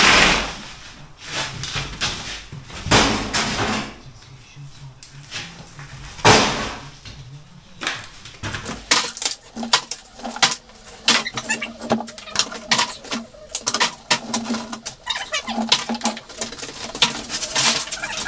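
Broken bricks and rubble handled into a flexible rubber builder's tub: several heavy clunks in the first half as pieces are dropped in, then a long run of small, quick clattering as loose debris is scooped and shifted.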